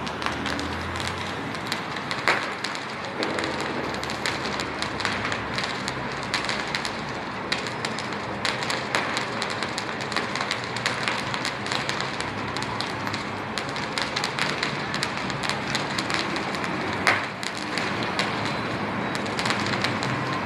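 Fireworks crackling: a dense, continuous patter of small sharp pops, with two louder bangs, one about two seconds in and one late on.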